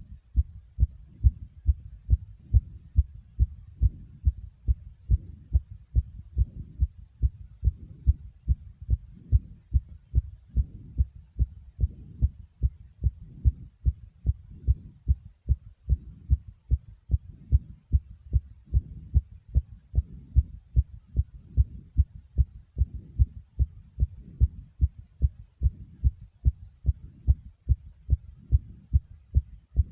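Human heartbeat, a fast, even run of low thumps at about two beats a second: the heart racing after exercise.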